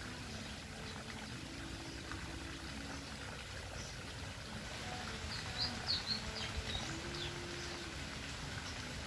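Flamingos in a flock making short, low murmuring calls again and again over a steady background hiss. A few quick high chirps stand out about five to six seconds in.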